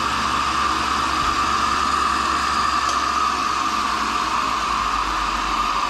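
Tool and cutter grinder running steadily: an even mechanical whir with a constant hum underneath.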